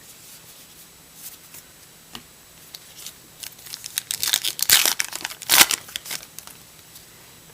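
A trading card pack wrapper being torn open and crinkled by hand. Scattered crackles build to a dense burst of crinkling and tearing about four to six seconds in.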